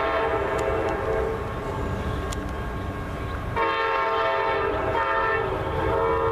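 Amtrak GE Genesis P42 diesel locomotive sounding its multi-chime air horn on approach: one blast fading out about a second and a half in, then a fresh blast starting abruptly about three and a half seconds in, broken briefly near five seconds and sounding again. Under the horn runs the low rumble of the oncoming train.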